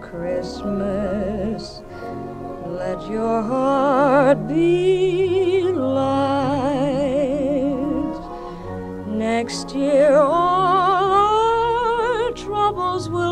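Music: a singer in operatic style, holding long notes with strong vibrato over a low, sustained accompaniment.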